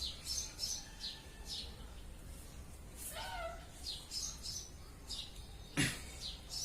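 Small birds chirping in quick, high, downward-sweeping notes, with a brief cat meow about three seconds in and a knock near the end.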